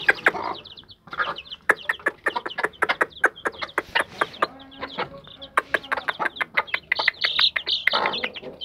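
Young beldi (native) chicks peeping while they peck starter crumble off a hard floor, their beaks making rapid, sharp tapping clicks, with a hen giving a low cluck about halfway through.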